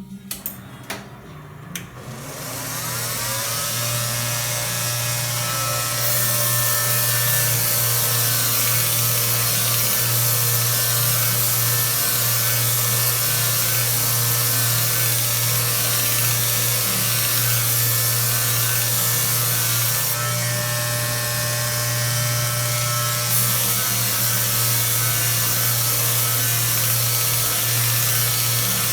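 Machine-shop crankshaft polishing machine starting up about two seconds in, its pitch rising as it spins up, then running steadily with a low hum and a loud hiss over it that eases briefly around twenty seconds in.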